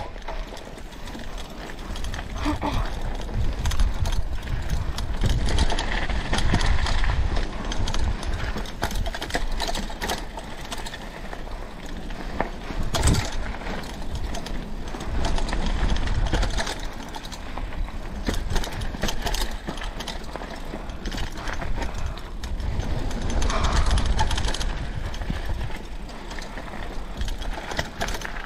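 Mountain bike riding a dirt trail: tyres running over rough ground with constant clicking and rattling from the bike, under a steady low rumble.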